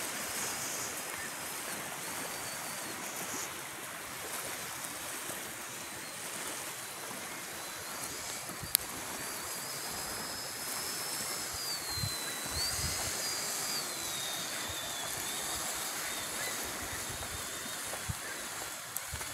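Redcat Gen 8 RC crawler's electric drivetrain whining at a high pitch that rises and falls with the throttle, over a steady wash of wind and surf. A single sharp click about nine seconds in.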